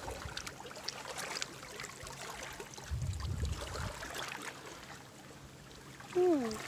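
Shallow water trickling and rippling over rocks, a soft steady rush with scattered small clicks. A brief low rumble comes about three seconds in, and near the end a short pitched sound slides down in pitch, the loudest sound here.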